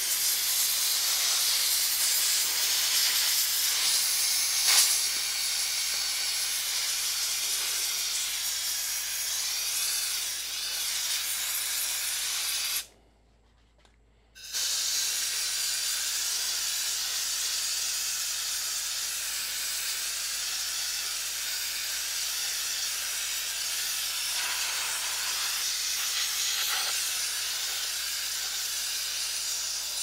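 Compressed air jet hissing steadily as it blows rinse oil and dirt off a circuit board. It stops for about a second and a half near the middle, then starts again.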